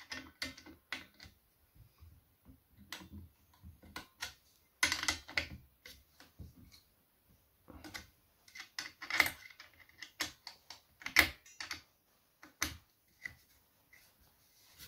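Irregular small clicks, taps and rattles of an Allen key and metal parts being handled as bolts are tightened on a chainsaw attachment's cover plate.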